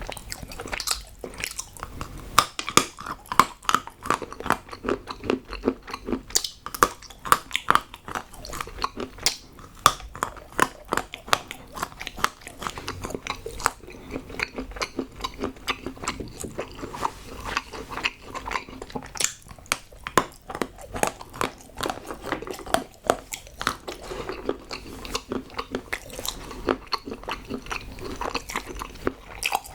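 Close-miked chewing and crunching of hard chocolate, a dense, irregular run of sharp crunches.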